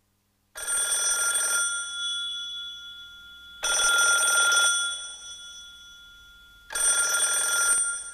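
A trilling bell ring sounds three times, about three seconds apart, each loud for about a second and then fading away, as the opening of a song's backing track.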